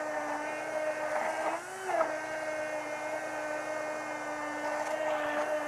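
Handheld immersion (stick) blender motor running steadily, pureeing shrimp bisque in a tall stainless steel cylinder. Its pitch briefly dips and then rises just before two seconds in.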